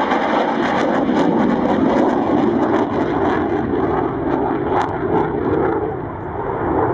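Saab J35J Draken's Volvo RM6C afterburning turbojet in flight during a display pass: a loud, steady rushing jet noise with a rapid crackle, easing slightly near the end.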